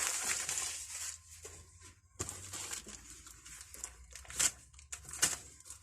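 Rustling and scraping as tools and packaging are handled and rummaged through, fading after the first couple of seconds, with a few light knocks near the end.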